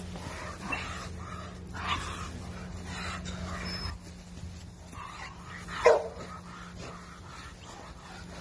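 A dog gives a few short barks, the loudest about six seconds in.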